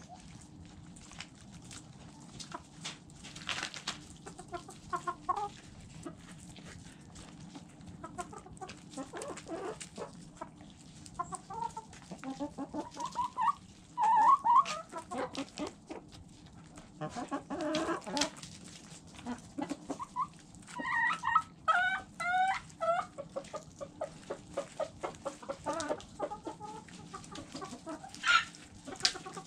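Backyard hens clucking as they feed, with many short sharp pecking taps close by. About two-thirds of the way through, one hen gives a quick run of repeated short calls.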